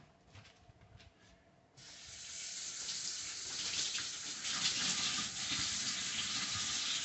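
Running water that starts suddenly about two seconds in and then flows steadily, an even hiss.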